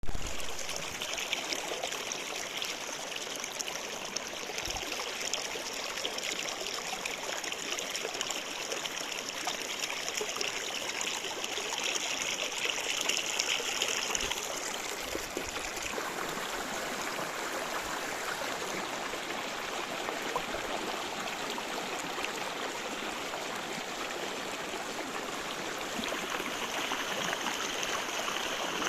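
Running water flowing steadily with a continuous splashing rush. About halfway through, the sound loses some of its high hiss, which comes back near the end.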